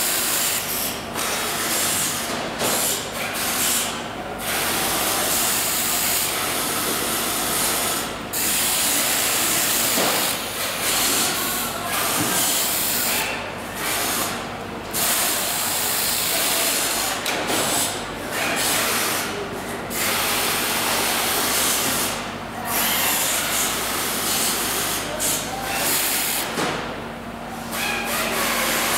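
Factory noise on an electric water pump assembly line: a loud, steady hiss over a low machine hum, the hiss dropping out briefly every few seconds.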